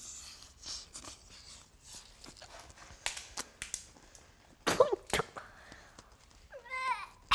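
People chewing big mouthfuls of taco, with scattered crunches and lip smacks, and a few short wordless vocal sounds: a falling groan about five seconds in and a wavering hum near the end.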